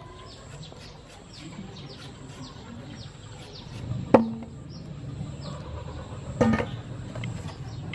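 Peeled green mangoes and tomatoes set down into a stainless steel bowl: two sharp knocks, about four and six and a half seconds in, each followed by a brief ring from the bowl. Faint high chirps in the background.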